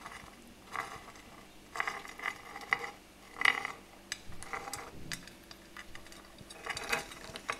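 Irregular light clicks and clatters as Caribbean hermit crabs (purple pinchers) clamber over a hand and one another, their hard shells and legs knocking against each other and the surface, busiest in the middle and again near the end.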